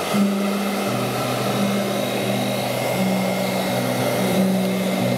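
Handheld hair dryer running, a steady rush of air with a thin whine over it, switching on at the very start. It is blowing on the wet watercolour paper to dry it.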